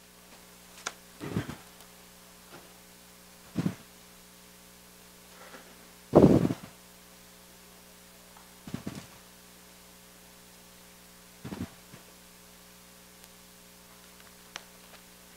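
Steady mains hum under a handful of short rustles and soft knocks, the loudest about six seconds in: Bible pages being turned and handled on a wooden pulpit.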